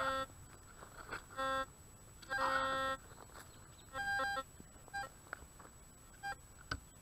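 White's DFX metal detector sounding target tones as the coil sweeps the ground: about six short beeps of differing pitch, some low and some higher, the longest lasting just over half a second. The tones signal buried metal under the coil.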